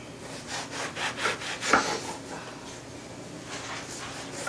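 Knife sawing back and forth through the crust of a white bread loaf on a wooden cutting board: a quick run of rasping strokes in the first two seconds, then a few more near the end.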